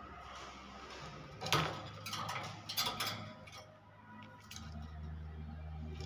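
A series of sharp ticks and knocks, the loudest about one and a half seconds in, as a common hill myna moves about in its wire cage. A low steady hum comes in after about four and a half seconds.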